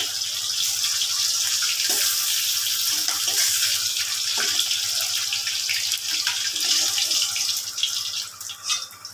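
Hot oil sizzling steadily in a wok as fried bhetki fish bones are lifted out with a steel spatula, with a few light scrapes of the spatula on the metal. The sizzle drops away and turns uneven near the end as the last piece comes out.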